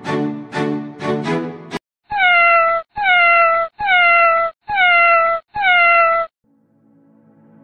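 A domestic cat's meow, a recorded sound effect: the same falling call, under a second long, repeated five times in a row at even spacing. It is preceded by the end of string music and followed by soft music fading in near the end.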